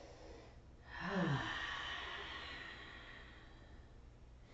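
A woman's deep, audible breath: about a second in, a short voiced sigh falling in pitch, then a long breathy exhale that fades away over two or three seconds.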